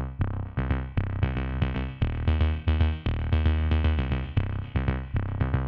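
Electronic background music with a steady beat and a strong bass line.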